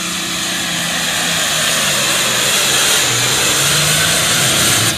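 Allis-Chalmers limited pro stock pulling tractor's diesel engine running flat out under full load as it drags the weight sled, growing louder as it passes close by.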